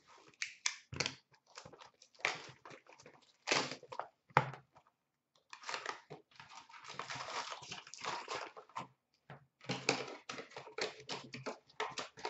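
Hockey card hobby box being opened by hand and its wrapped packs lifted out, with irregular crinkling and rustling of cardboard and wrappers. A few thumps come in the first half, and the crinkling runs longer and steadier in the second half.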